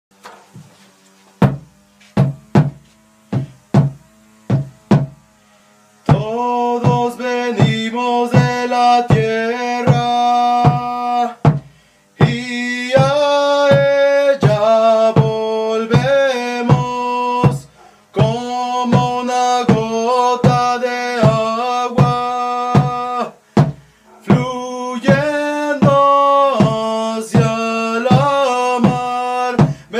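A drum beaten by hand at about two strokes a second, alone at first; about six seconds in, a man's voice joins, singing a chant in long held notes over the beat, in phrases with short breaks between them.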